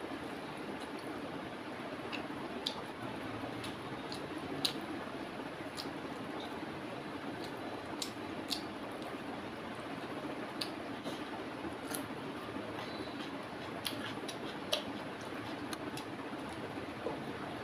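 Eating sounds from chicken on the bone held in the fingers: chewing and sucking, with irregular wet mouth clicks and smacks over a steady background hiss.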